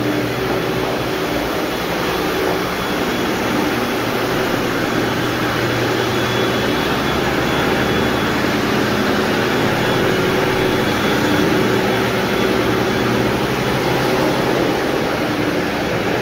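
Electric floor-cleaning machines running steadily while stripping wax from a hardwood floor: a 175 rpm rotary floor machine scrubbing the stripping solution and a Kärcher cylindrical-brush scrubber, a constant motor drone with a low hum under an even hiss.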